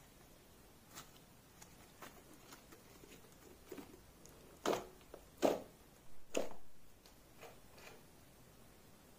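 Thick clay slime being stretched and pressed by hand: faint sticky clicks and crackles, with three louder pops about halfway through, the last one longer and fading out.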